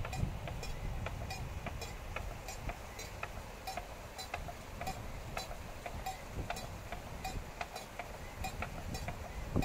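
Cowbells clanking irregularly, a quick uneven run of small metallic clinks, over a low rumble.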